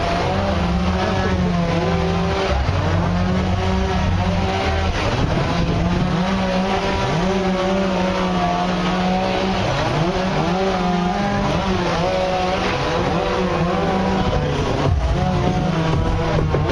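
Several chainsaws running at once, their engine notes rising and falling independently as each is revved and eased off while cutting.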